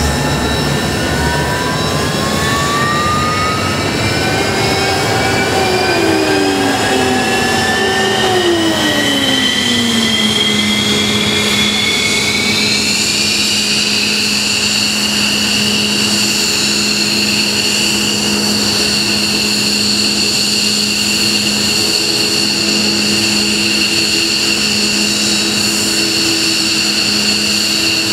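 F-15J Eagle's F100 turbofan engine spooling up during start: a whine that climbs in pitch over about the first thirteen seconds, then settles into a steady idle whine. Lower tones step down in pitch partway through and then hold steady beneath it.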